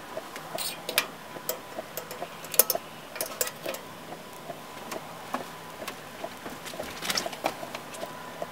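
Stainless steel kettle on a stove being handled: sharp metallic clinks and taps of its lid and spout flap, in a cluster through the first few seconds, loudest about two and a half seconds in, and again around seven seconds. Under them runs a steady light ticking.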